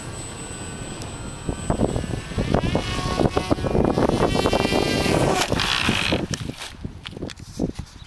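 Electric motor and propeller of a foam radio-controlled model airplane whining in flight, rising in pitch around the middle, over heavy wind noise on the microphone. Near the end it gives way to scattered clicks and rustles.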